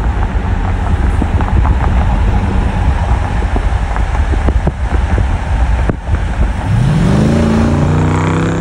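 Wind and road noise rushing in at speed while driving alongside another vehicle, with low buffeting on the microphone. Near the end an engine revs up under acceleration, its pitch rising and then holding steady.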